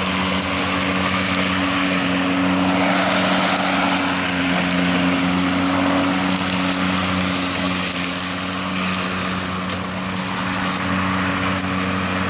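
Greenworks 40V 19-inch cordless electric lawn mower running steadily while mowing grass: an even motor-and-blade hum under a whooshing hiss.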